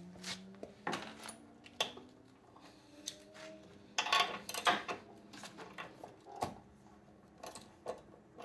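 Irregular metallic clicks and clinks of a socket wrench and spark plug socket at work, as the spark plug is taken out of a Craftsman 190cc mower engine. A quick run of clicks comes about four to five seconds in.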